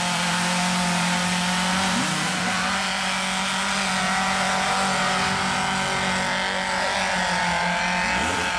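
Off-road rail buggy's engine held at high, steady revs under full load as it climbs a steep dirt hill. The engine note breaks up near the end.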